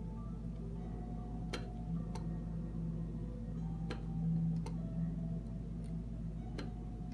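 Light, irregular clicks and taps of hand soldering work on a circuit board's header pins, five or so spaced a second or two apart, over a steady low hum.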